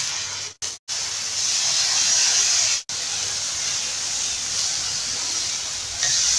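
Marinated chicken pieces sizzling steadily in hot oil on a black griddle pan over medium heat. The sizzle drops out briefly a few times.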